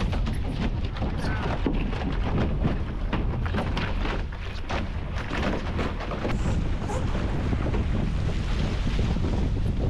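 Wind buffeting the microphone of a camera mounted on a sailing catamaran, over water splashing against the hulls. Frequent short clicks and knocks come from the rigging and lines and from the sailor moving across the trampoline during a tack.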